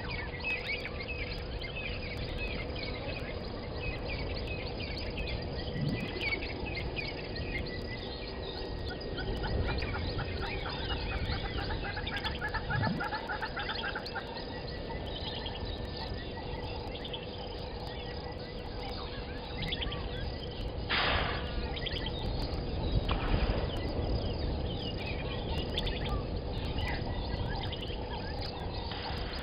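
Bushveld ambience: assorted wild birds chirping and calling over a low background rumble and a faint steady hum, with a fast run of repeated call notes partway through and a short noisy burst about two-thirds through.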